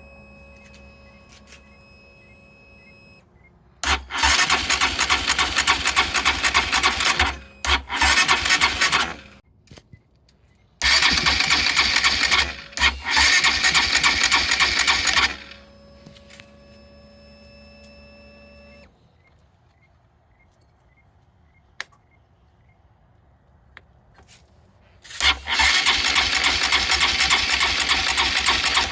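Honda CRF150L single-cylinder engine running in four loud spells of a few seconds each, with quieter gaps between. The engine has a clicking from the cylinder head that persists after a tappet adjustment, which the owner suspects comes from excess rocker-arm play.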